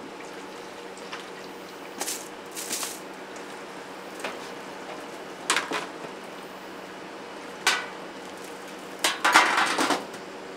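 Stainless-steel box lids and trays clanking and scraping as they are handled: about six short metal knocks, the longest a rattling scrape near the end, over a steady machine hum.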